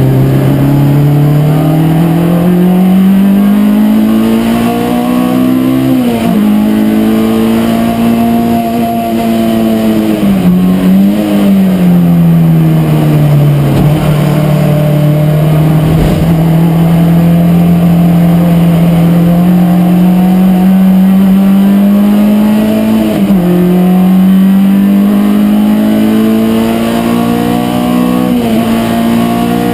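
Race car engine heard from inside the cockpit at speed on track. It pulls up steadily in pitch, drops sharply at gear changes and eases back when the driver lifts, then climbs again.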